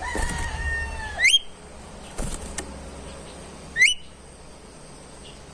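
Golden whistler (kancilan emas) calling: a held whistled note that snaps into a sharp rising whip just over a second in, then a second quick rising whip a little past the middle. A few faint clicks come between the calls.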